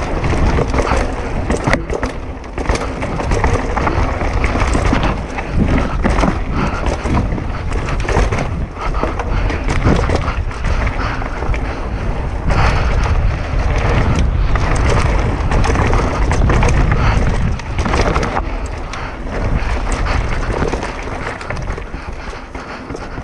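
Mountain bike riding fast down a dirt bike-park trail, heard close up: a constant rush of tyres on the ground with frequent rattles and knocks as the bike goes over bumps, rising and falling with the terrain, and wind on the microphone.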